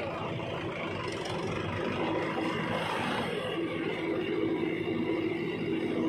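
Diesel engines of a JCB 3DX backhoe loader and a Mahindra 575 DI tractor running steadily, with a steady mid-pitched hum over the engine noise.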